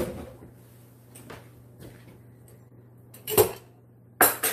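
Scattered light knocks and clicks, with one sharper knock about three and a half seconds in, then metal kitchen utensils clattering near the end as someone rummages for a measuring scoop.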